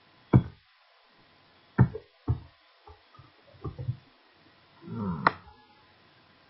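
Computer keyboard and mouse: about six separate sharp clicks and low knocks, spread irregularly, with a short hummed murmur of voice about five seconds in.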